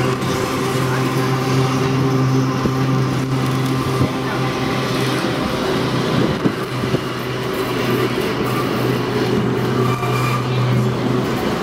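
Historic streetcar running along its track, heard from inside the wooden car: a steady low hum under a constant rattle of the body and wheels, with a few short knocks over the rails.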